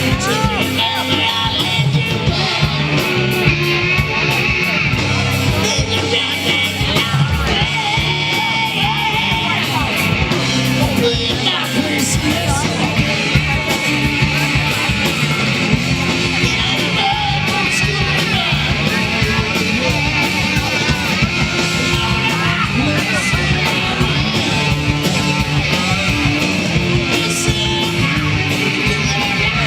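Loud hard rock played by a band, with electric guitar over bass and drums and a singer shouting out the vocal.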